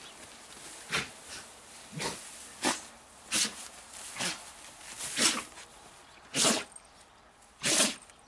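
A dog sneezing again and again: about eight short, sharp sneezes, roughly a second apart, the later ones the loudest.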